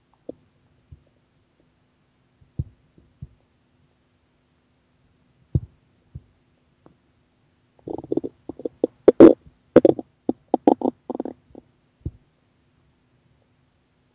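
Empty stomach growling from hunger: a few short, separate gurgles, then about eight seconds in a rapid run of gurgles lasting some three seconds, ending with one last gurgle.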